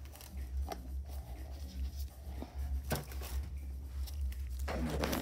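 A few light clicks and knocks from a spoon and a flexible plastic mixing bowl being handled, over a steady low hum, with a short rush of noise near the end.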